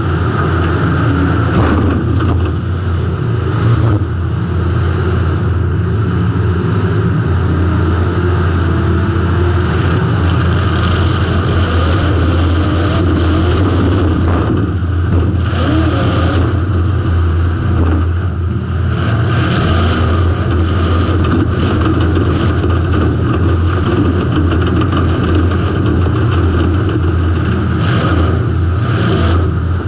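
Demolition derby car's engine running hard and revving, heard loud from inside the car, with a few sharp bangs and knocks along the way.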